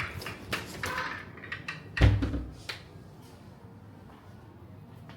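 A few sharp knocks and clatters, then one loud thump about two seconds in, followed by a low, steady background.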